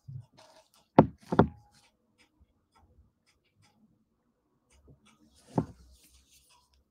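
A few sharp knocks: two close together about a second in and another near the end, with faint clicks between them.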